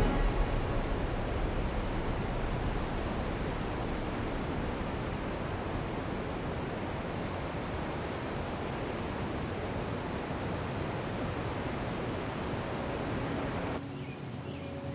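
Steady rush of flowing water, a smooth even roar. Near the end it cuts abruptly to quieter outdoor ambience with a few faint bird chirps.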